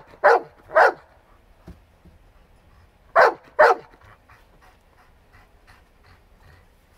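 Giant Schnauzer barking at a squirrel up a tree: three barks in quick succession at the start, then two more about three seconds in.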